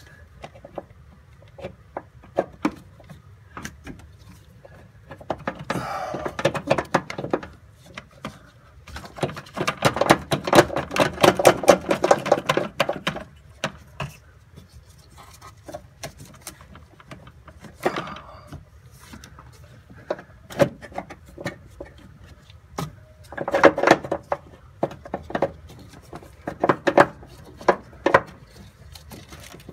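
Scattered clicks, knocks and rattles of hand-tool and part handling in a cramped engine bay, as the clutch master cylinder is worked loose from behind the brake master cylinder. Dense runs of rattling come about six seconds in, again through the middle, and again in the last third.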